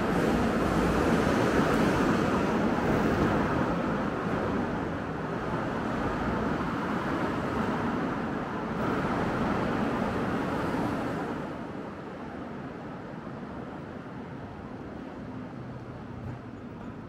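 City street traffic noise: a steady rush of passing vehicles, louder for the first eleven seconds or so and dropping off about twelve seconds in.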